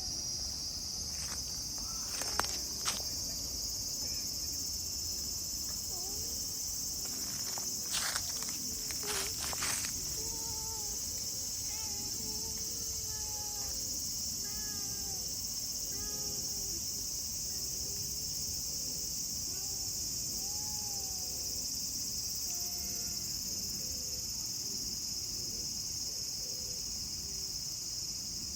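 A steady, high-pitched insect chorus running without a break, with a few sharp clicks or knocks about two to three seconds in and again around eight to ten seconds in.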